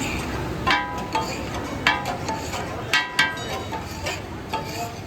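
Steel spatulas striking a flat iron griddle (tawa) as katakat is chopped and fried, sharp metallic clanks every second or so, each ringing briefly.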